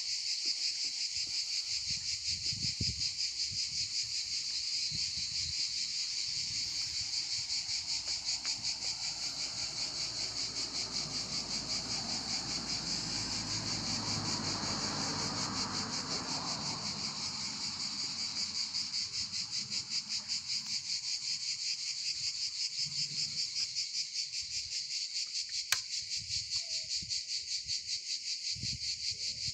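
A dense, steady insect chorus: a rapid, high-pitched pulsing chirr. A low rumble swells and fades midway, and a single sharp click comes near the end.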